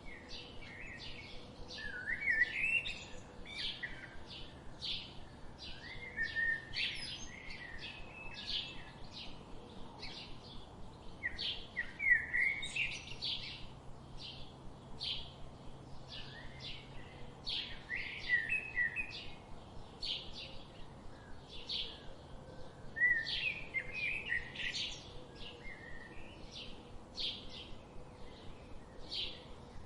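Birds singing: a steady series of short high chirps, about two a second, with a longer warbling phrase breaking in every few seconds.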